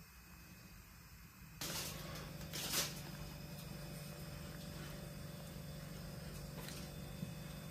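Plastic produce packaging rustling in two short bursts as the bag is handled on a worktop, the second louder, then a steady low hum.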